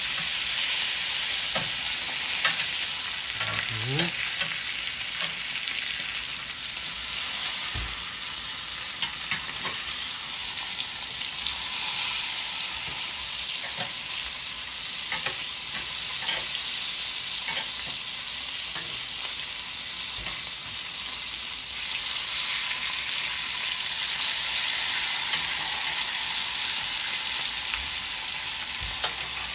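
Two ribeye steaks sizzling steadily in a hot cast-iron grill pan, with scattered clicks of metal tongs as the steaks are moved and turned.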